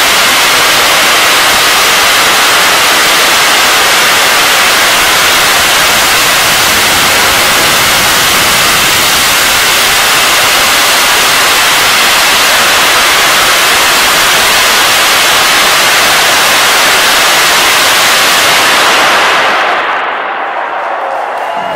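Hydrogen peroxide jetpack's steam-thrust jets hissing loudly and steadily through a flight of about 19 seconds, then dying away over about a second as the thrust is cut.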